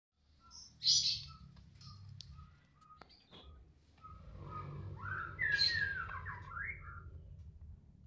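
White-rumped shama calling and singing: a sharp high chirp about a second in, a few short repeated notes, then a run of gliding whistled phrases, the loudest part, from about five and a half to seven seconds in.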